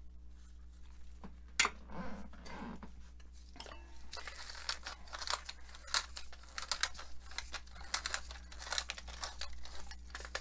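Wooden pepper mill twisted by hand, grinding pepper in a quick run of gritty, crunching clicks from about four seconds in. Before that, a sharp click and some rustling handling sounds.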